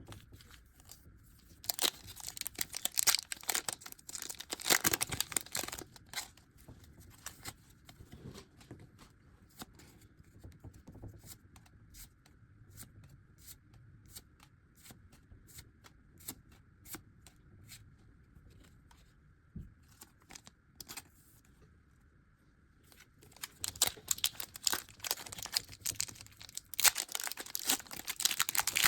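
Foil Pokémon booster pack wrappers being torn open and crinkled, in two loud stretches, one near the start and one near the end, with sparse light clicks and rustles between them.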